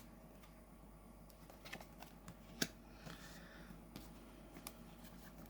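Faint clicks, taps and a light rustle of thick matte oracle cards being handled and moved one at a time, with the sharpest tap about two and a half seconds in.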